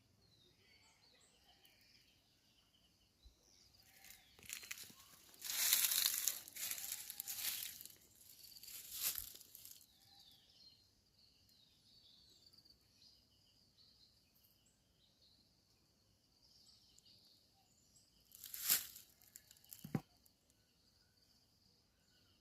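Bursts of rustling and crinkling, loudest about a quarter of the way in and again near the end, over faint, high bird chirping throughout.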